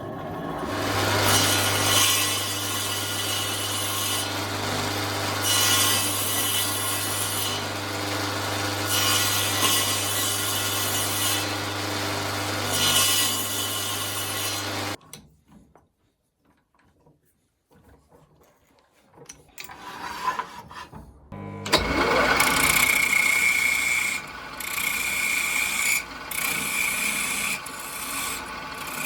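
A power tool running and working wood, its steady motor hum swelling into louder noisy passes every few seconds, then cutting out about halfway. After a few seconds of near quiet with a few knocks, a power tool starts again and works the wood in short spells with a high whine.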